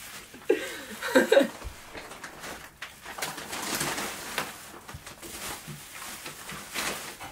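Bubble-wrap plastic crinkling and rustling as a tennis racket is handled and unwrapped, in irregular crackly bursts. About a second in, a brief voice sound rises above it.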